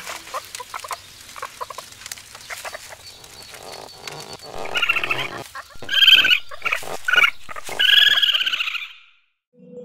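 Animal sound effects: light clicks and rustles, then from about four and a half seconds in a run of loud, wavering, chattering calls, the loudest near the end, stopping shortly before the end.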